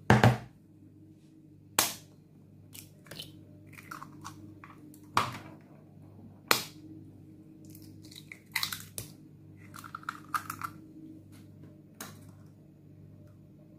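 Eggs being cracked into a clear plastic mixing bowl: several separate sharp knocks and cracks of shell against the bowl, the loudest right at the start, with smaller shell and handling sounds in between.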